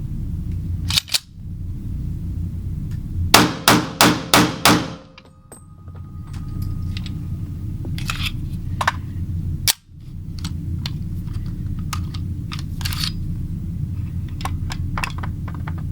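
EAA Witness pistol with a .40 S&W conversion kit fired in a quick string of about six shots a little over three seconds in, after a single sharp crack about a second in. Fainter clicks follow, over a steady low rumble.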